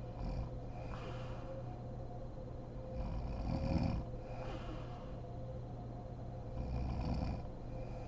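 A sleeping woman snoring: three snores roughly three and a half seconds apart, the loudest about three to four seconds in, with softer breaths between them.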